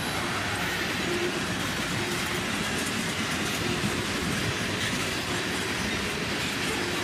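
Freight train cars rolling past at speed: a steady rumble and clatter of steel wheels on the rails.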